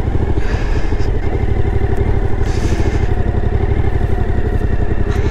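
Suzuki V-Strom motorcycle engine running at low speed as the bike is ridden slowly across grass, a steady even pulse throughout. Two short hissing rushes come about half a second in and again about two and a half seconds in.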